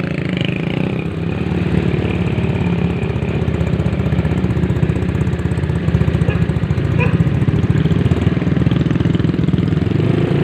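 Small motorcycle engine idling steadily close by with an even, rapid putter.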